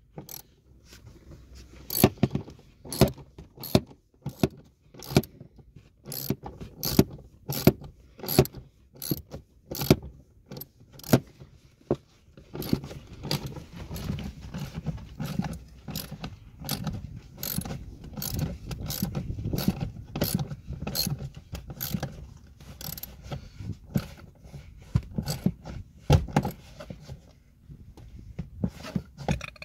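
Socket ratchet wrench clicking in quick strokes as the seat mounting bolts are turned.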